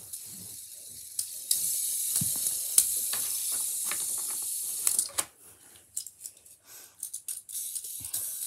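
A steady hiss from about a second and a half in that lasts some three and a half seconds, then scattered light clicks and rattles of small things being handled close to the microphone.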